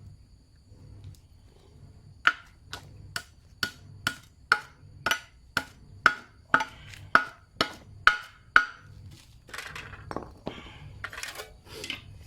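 A tool striking wood during a hoe-handle repair: about fourteen sharp, evenly spaced knocks, roughly two a second, then several seconds of rough scraping.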